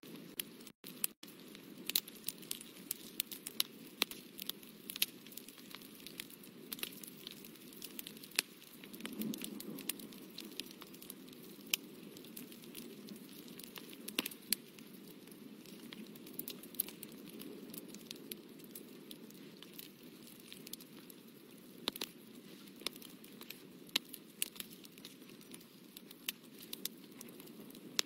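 Fine brush tip dabbing and scratching on watercolour paper: scattered small ticks and crackles, several a second, over a steady low hum.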